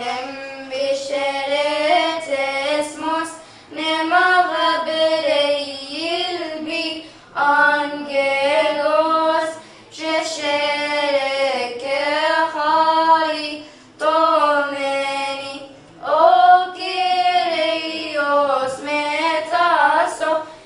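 Two young girls singing a church hymn together without accompaniment, in phrases of a few seconds each with short pauses for breath between them.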